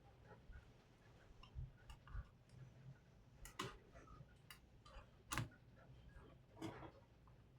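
Faint, irregular light clicks and taps of small plastic and metal laptop parts being handled and fitted during assembly, with one sharper click a little past halfway.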